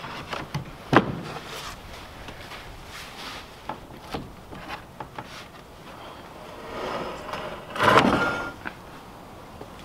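Heavy wooden plank door being pushed shut into its wooden frame, with one sharp knock about a second in and lighter wooden knocks after it. Near the end comes a longer, louder scraping rustle of wood being handled.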